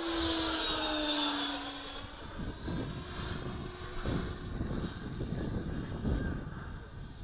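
A radio-controlled jet's 105 mm electric ducted fan, driven by an 8S motor, whines past, loudest in the first two seconds with its pitch falling as it goes by. It then fades under a low, uneven rumbling noise.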